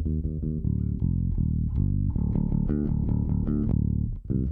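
Recorded electric bass guitar line, a run of plucked short and held notes, played back through a Tegeler Audio Manufaktur Vari Tube tube compressor that is switched in.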